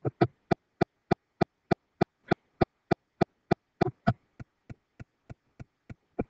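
A steady run of sharp clicks, about three a second. They are loud for the first four seconds, then drop much fainter, with one louder click again near the end.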